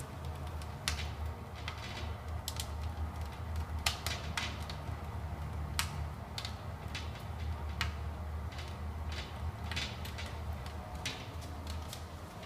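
Wood fire burning in an Invicta 700 fireplace: irregular crackles and pops over a low, steady rumble.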